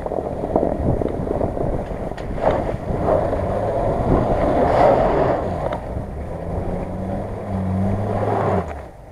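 Mercedes-Benz GL 350 SUV driving through a shallow stream: a steady engine note under the splash and churn of tyres in water and slush, loudest about halfway through, both dropping away shortly before the end.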